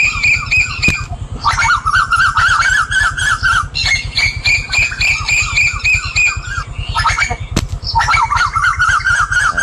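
Birds chattering in fast, repeated squawky chirps in runs of about a second, over the steady low rumble of a running engine.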